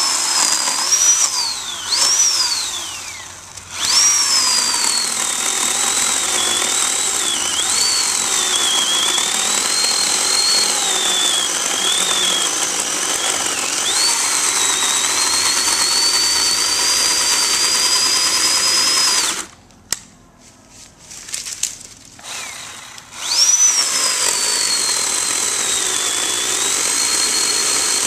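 Oregon PowerNow 40-volt battery chainsaw's electric motor running with a high whine as its chain cuts through a log. The pitch sags under load and rises when the chain frees. It stops briefly about three seconds in and again for about four seconds past the middle, then spins up and cuts again.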